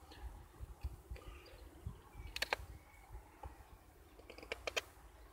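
Scandi-ground blade of a Cudeman 148M bushcraft knife cutting into a dry hazel stick while carving a notch: crisp clicks and snaps of the edge biting the wood, a quick cluster about halfway through and a few more near the end.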